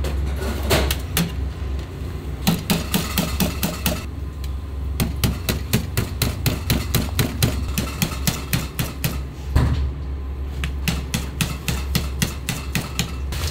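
Rapid, rhythmic knocks of a knife or mallet on a cutting board during kitchen prep, about four or five a second, in runs of a few seconds with short pauses. A steady low hum runs underneath.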